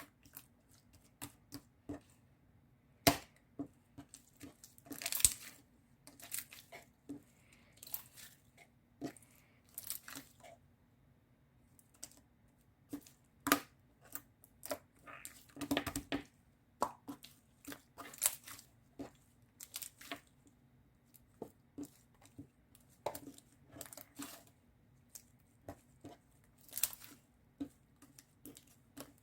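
Handling noises close to the microphone: irregular taps, crinkles and short tearing sounds, like paper or packaging being handled, over a faint steady low hum.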